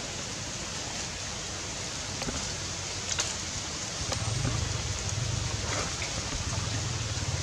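Steady outdoor hiss with a few faint clicks; a low rumble comes in about four seconds in and stays.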